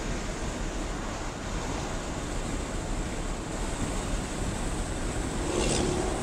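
Steady road and engine noise of a moving car, heard inside the cabin as an even hiss and rumble, with a brief louder rustle near the end.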